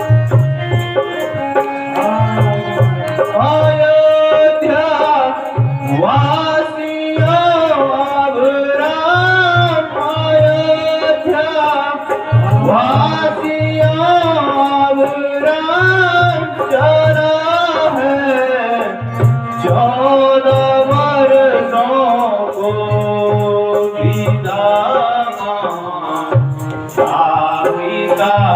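Folk-style music with tabla: a melodic line, largely sung, over tabla drumming in a steady repeating rhythm.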